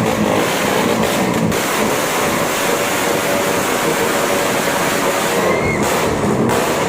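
Motorcycle with a loud aftermarket exhaust running and being revved.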